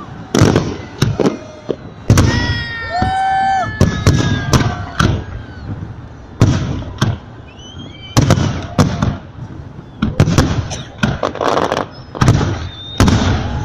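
Fireworks salute going off: a long run of sharp bangs from bursting shells, at times several close together, with people's voices calling out among them.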